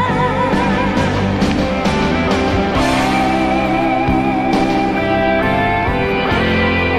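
Instrumental break in the karaoke backing track of a Malay rock ballad: a guitar plays the melody over bass and drums. A held sung note with vibrato trails off just after the start.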